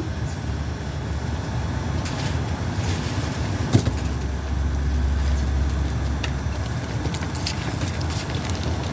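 Low steady rumble of a car running, with a few light clicks and a sharper knock a little before four seconds in.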